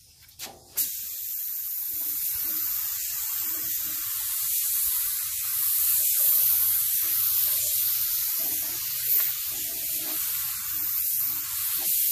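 Compressed-air gravity-feed paint spray gun spraying, a steady hiss of air atomising paint. It starts with a short blip about half a second in, then holds steady.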